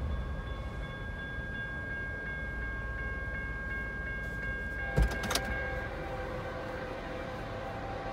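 Railroad crossing bell ringing steadily while the crossing gates lower. About five seconds in there is a sharp knock, and the bell stops soon after; from then on a train horn sounds steadily.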